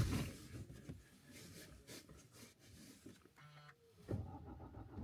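A Suzuki Jimny's petrol engine cold-starting after two nights and three days standing in freezing weather. After faint handling noises and a brief hum about three and a half seconds in, the starter cranks near the end and the engine catches right at the close, starting without trouble.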